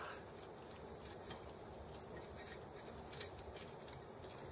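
Faint, scattered light clicks of small metal parts being handled, as a bent brass throttle linkage is worked into place on a model tractor, over quiet room tone.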